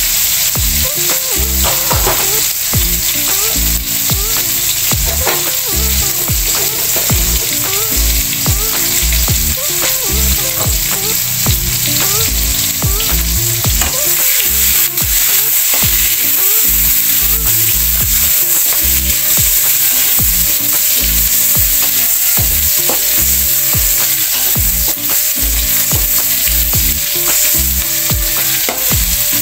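Cooked rice frying in hot oil in a pan, sizzling steadily, with frequent scrapes and clicks of stirring.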